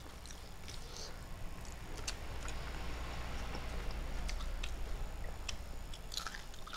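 A person chewing a mouthful of food by mouth-open mukbang eating, with irregular wet clicks and smacks, over a steady low hum.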